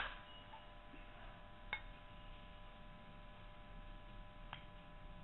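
Plastic spatula stirring shredded vegetables and mayonnaise in a glass bowl: a sharp click right at the start and two faint taps later on, over a faint steady electrical whine.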